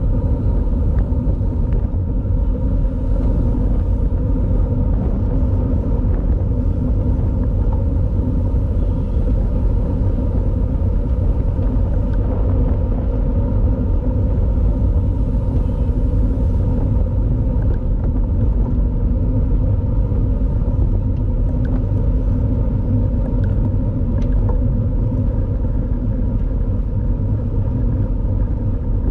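Steady low rumble of wind and road noise on a camera carried on a bicycle riding in a road race.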